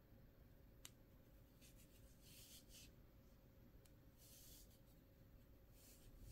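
Near silence with a few faint, short rustles of polyester fiberfill stuffing being handled and pushed into a crocheted doll piece, and one small click about a second in.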